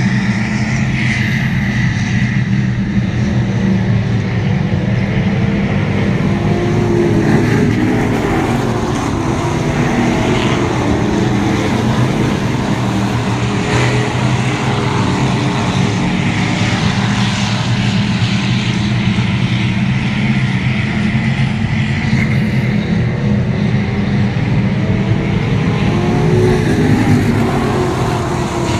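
Street stock race cars' engines running laps on a dirt oval, over a steady low hum; engine notes swell and fade as cars pass, loudest about a quarter of the way in and near the end.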